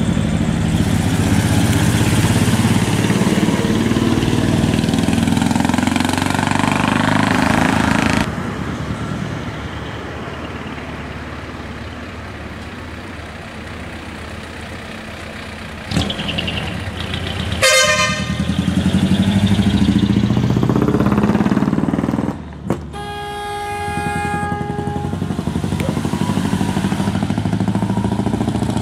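Heavy decorated trucks running and pulling past, a deep engine rumble that drops off sharply about a third of the way in. A truck horn sounds twice: a short falling blast past the middle and a steady blast of about two seconds a little later.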